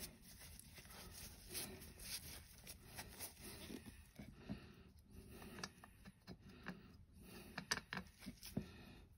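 Faint handling noises: scattered light taps, scrapes and rustles of nitrile-gloved hands dabbing a small piece of sponge in a metal paint palette and picking up a small printed token.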